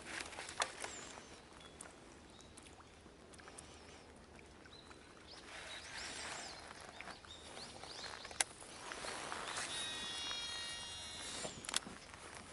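Quiet outdoor ambience: soft rustling swells and three sharp clicks, with a bird calling about ten seconds in.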